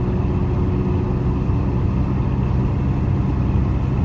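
Hyundai HR light truck's four-cylinder diesel engine and road noise heard from inside the cab while driving, a steady low drone with a faint steady whine that fades out about two seconds in.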